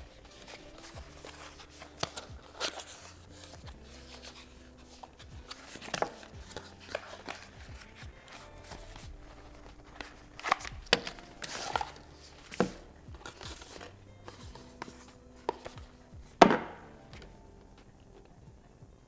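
Unboxing handling noise: irregular knocks, taps and rustles as packaging and parts are handled and set down on a hard surface, with one sharper knock near the end, over soft background music.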